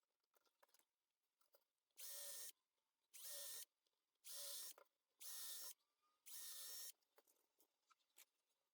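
Small power drill run in five short bursts, each about half a second long and about a second apart.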